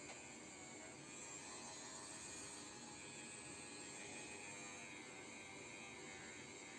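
Faint steady hiss and hum: room tone.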